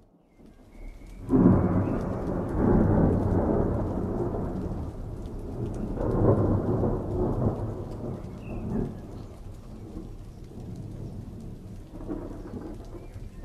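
Thunder: a sudden loud crack about a second in that rolls on as a low rumble, swelling again around six seconds, then dying down to a softer rumble near the end.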